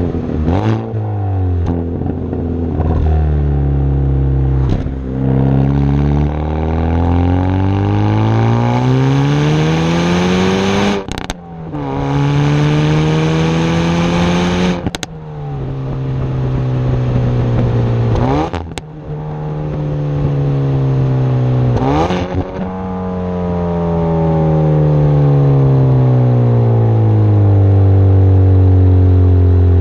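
Hyundai i30N Performance's turbocharged 2.0-litre four-cylinder accelerating hard through the gears. Its exhaust note climbs in pitch and drops back at each upshift, with a sharp crack at the gear changes. In the last several seconds the note falls slowly and evenly.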